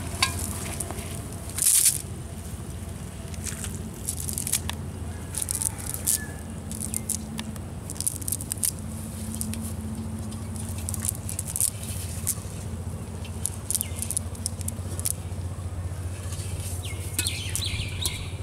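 Short scattered clicks, rustles and crackles of a wet cast net being handled as the catch is picked out of it on the grass, over a steady low hum.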